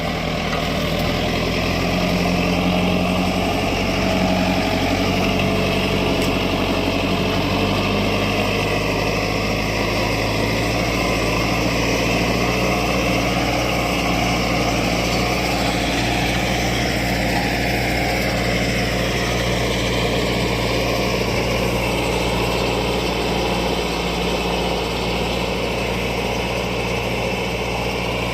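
Tractor engine running steadily while pulling a disc plough, its low engine note holding even with a slight shift in pitch in the first few seconds.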